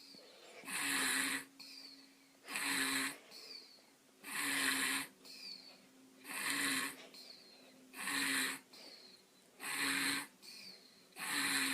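A sleeping baby snoring in a steady rhythm, a short rasping snore about every two seconds, with a faint high falling whistle on the breath between snores.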